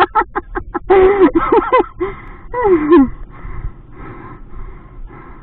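A man out of breath from hard cycling, gasping in a quick run of short voiced pulses, then a few loud drawn-out breaths whose pitch bends and falls. Fainter, even panting follows.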